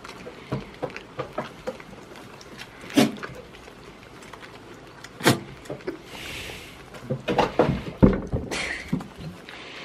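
Irregular knocks and thumps, the loudest about three and five seconds in and a quick cluster around seven to eight seconds, with two short hissing rushes in between.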